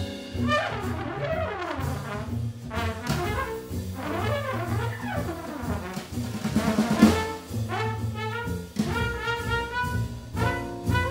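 Live small-group jazz: a trumpet playing over double bass and a drum kit with cymbals, the trumpet line coming through most clearly in the second half.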